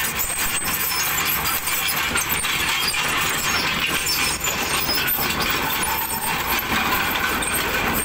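Tracked excavator's diesel engine running steadily, with a dense metallic rattle over a low rumble.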